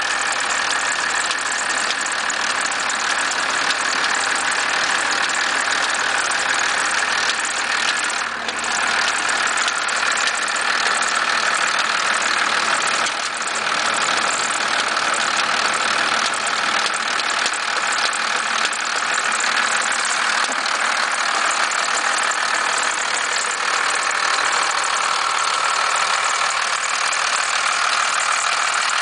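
First-generation Cummins 12-valve diesel, a 5.9-litre inline-six, running steadily at idle with a knock/rattle whose source the owner cannot pin down.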